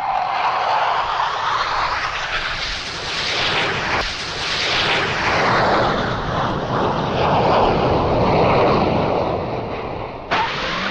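Airplane engine noise used as a sound effect: a steady, noisy roar that swells and fades twice, then switches abruptly to a different noise near the end.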